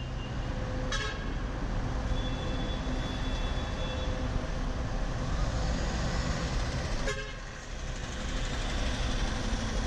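Steady vehicle and traffic noise, with two short knocks, one about a second in and one about seven seconds in.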